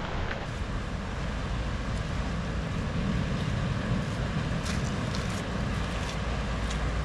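Wind noise on the microphone over the steady wash of surf breaking against a rocky shore.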